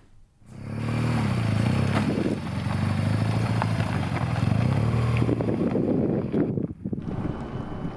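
Off-road vehicle engine coming in about half a second in and running loudly, its pitch dipping and rising as it is revved, with a brief drop near the end.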